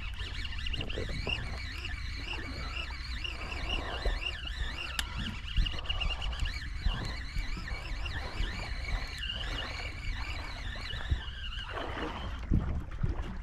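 Conventional jigging reel being cranked in a steady rhythm, its gears whirring in a wavering whine, over a low steady rumble of boat and wind.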